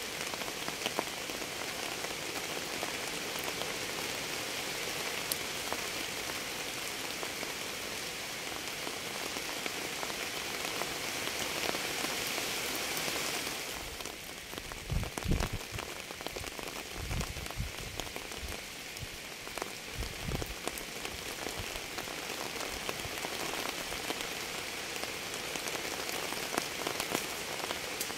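Steady rain falling on a surface, with individual drops ticking through the hiss. About halfway the hiss eases a little and a few short, low thuds sound.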